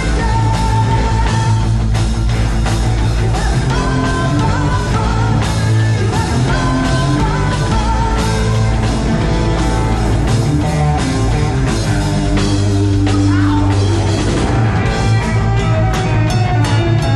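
Rock band playing live: guitar, bass and drums at a steady loud level, with a pitched lead line over the band.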